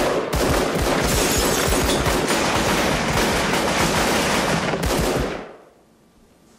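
Rapid handgun fire, shot after shot so close together that they run into one long barrage for about five seconds, then it stops and dies away.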